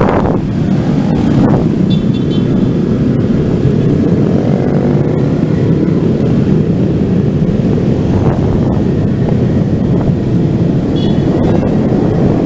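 Steady, loud rush of wind buffeting the microphone of a camera mounted on a moving bicycle, with road traffic and motorcycles underneath. A faint short high tone sounds briefly twice, about two seconds in and near the end.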